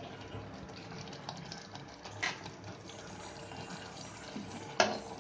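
Chicken korma gravy bubbling and sizzling in an aluminium pressure-cooker pan over medium flame, with two sharp clicks, about two seconds in and near the end.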